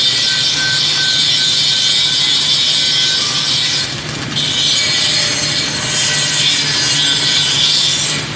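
Stick (shielded metal arc) welding with two electrodes burning at once: a steady, loud crackling hiss of the arcs, which drops out briefly about four seconds in and then picks up again.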